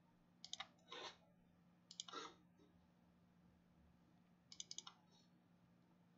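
Faint computer mouse clicks in small quick clusters, including a run of four rapid clicks about four and a half seconds in, with a couple of softer brushing sounds between them.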